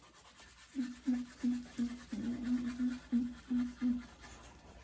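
A person humming a string of short notes, nearly all on one low pitch, with one longer held note in the middle.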